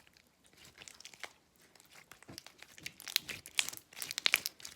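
Slime being squished and stretched in the hands: a run of sticky clicks and pops, sparse at first and growing denser and louder over the last two seconds.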